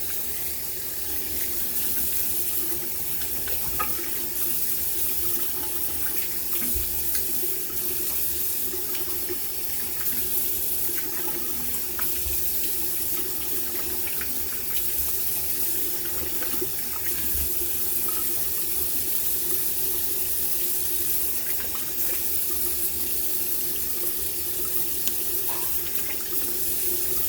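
Bathroom tap running steadily into a sink while lather is rinsed off the face, with a few faint splashes and knocks from hands in the water.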